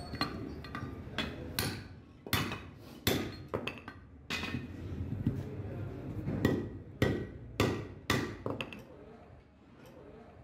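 Hand hammer striking a steel truck brake shoe, setting the rivets that hold the brake lining: about a dozen sharp metallic blows at an uneven pace, stopping shortly before the end.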